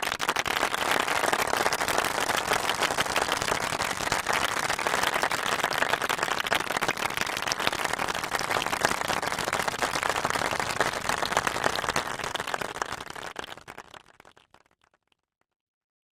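A crowd applauding: dense, steady clapping from many hands that fades away over the last few seconds, ending about fifteen seconds in.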